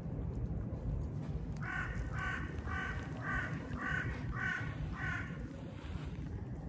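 A crow cawing seven times in a quick, even series, about two caws a second, over a steady low background rumble.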